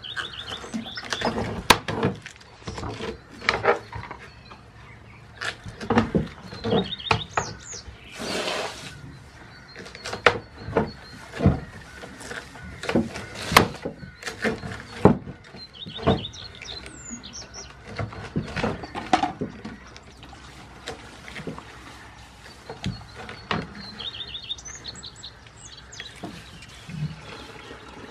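Goat biting and chewing fresh spinach leaves taken from a hand: an irregular run of crisp crunching and tearing sounds. A small bird chirps briefly in the background a few times.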